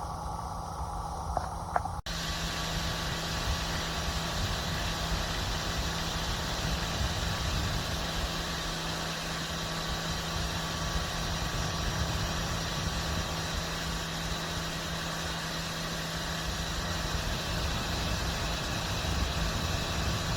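GKT mini portable fan running steadily, a continuous whirring rush of air with a constant low hum. The steady sound begins abruptly at a cut about two seconds in.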